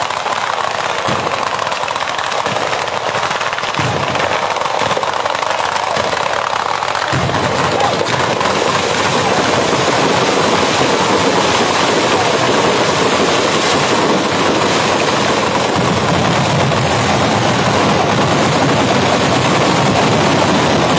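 Batteria alla Bolognese: chains of ground firecrackers going off in a dense, continuous volley of bangs, too fast to count. The volley starts abruptly, grows fuller about seven seconds in, and stays loud.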